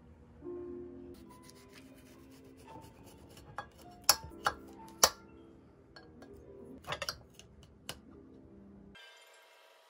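Kitchen knife slicing a melon on a glass plate, the blade clicking and clinking against the glass about seven times, loudest about four and five seconds in.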